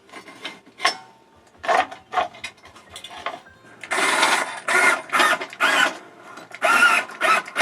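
Trailer stabilizer jack being cranked down against the ground, a run of rhythmic grinding strokes that grow louder and steadier about halfway through.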